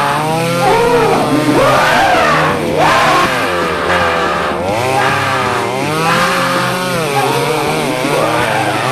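Chainsaw engine running and being revved, its pitch swinging up and down over and over.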